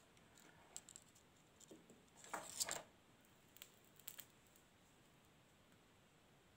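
Faint handling sounds of wires and small parts on a workbench: a few light clicks and a brief scrape about two and a half seconds in.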